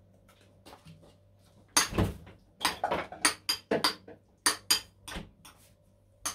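Metal spoon knocking and scraping against a ceramic bowl as crab salad is stirred with mayonnaise. It starts about two seconds in with a louder knock, then goes on as a run of sharp clinks, several a second.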